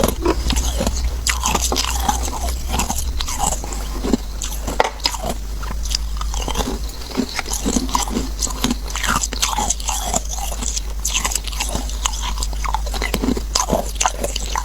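Ice being bitten and crunched between the teeth, then chewed, with many irregular sharp crunches one after another.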